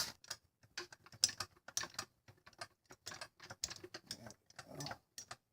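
Floor jack being worked into place under the car's frame: a run of irregular light clicks and taps, several a second.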